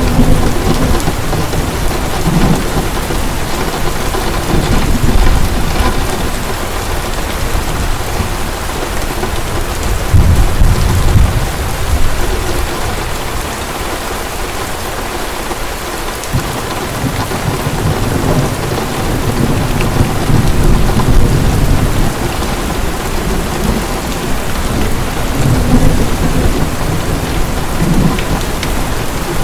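Heavy rain pouring steadily, with low rolls of thunder rumbling in and out several times. The strongest roll comes about a third of the way through.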